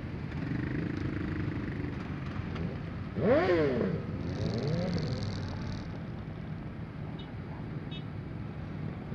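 Motorcycle engines idling and running slowly in a dense pack. About three seconds in, one engine revs up sharply and drops back, the loudest sound. A smaller rev follows a second later.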